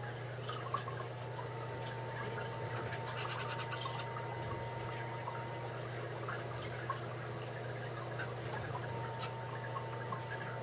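Aquarium filter running: water trickling and bubbling over a steady low hum, with small scattered clicks.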